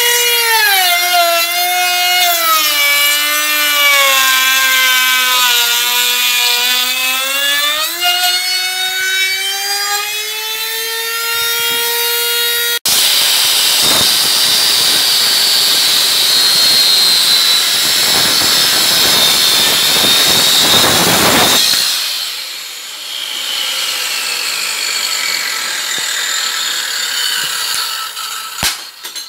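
Electric circular saw cutting wooden boards. The motor's whine sags in pitch as the blade bites and climbs back as it frees. This is followed by a louder, noisier stretch of cutting, and near the end the motor winds down with a falling whine.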